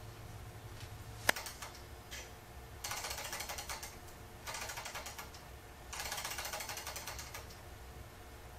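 A sharp click from a utility lighter about a second in, then a small model Stirling engine's pistons and flywheel clattering rapidly in three spells of a second or two, stopping and starting: the engine keeps stalling on axle friction because the gas is not yet hot enough to keep it running.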